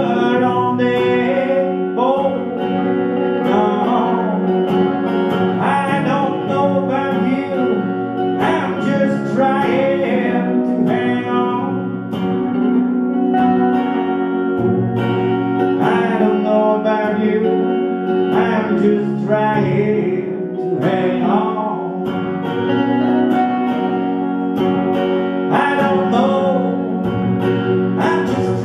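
Two electric guitars played live together, one picking a melody over the other's chords, with a man singing at times.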